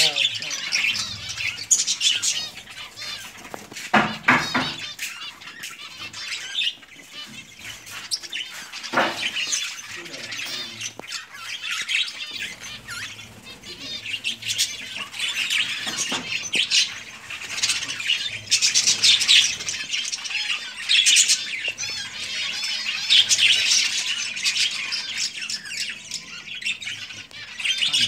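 Budgerigars, adults and chicks, in a nest box making a continuous raspy chatter of chirps and squawks. The chatter grows louder and busier in the second half. A couple of sharp knocks sound in the first ten seconds.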